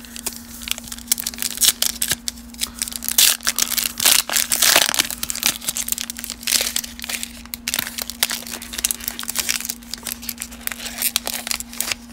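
Foil wrapper of a 2020 Donruss baseball card pack being torn open and crinkled by hand: a run of irregular crackling rustles, densest about four to five seconds in.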